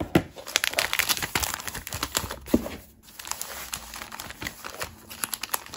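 Thin white foam packaging wrap crinkling and rustling as a parcel is unwrapped by hand. The crackling is dense for about three seconds, breaks off briefly, then goes on as scattered crinkles.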